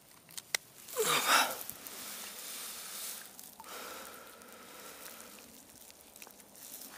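Handling noises as a pike is clamped with a plastic lip-grip tool, lifted from the water and unhooked by hand: a sharp click about half a second in, a louder burst of rustling about a second in, then softer rustling.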